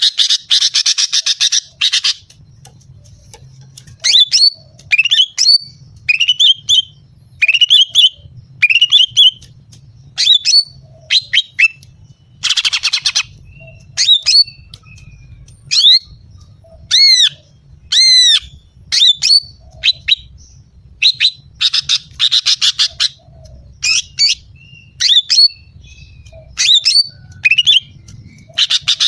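Female greater green leafbird (cucak ijo) calling: a string of short, sharp, sweeping notes, some rising and falling in an arch. These are broken three times by harsh, buzzy chattering rattles: at the start, about halfway and about three-quarters of the way through. It is a call of the kind played to lure male leafbirds and make them excited.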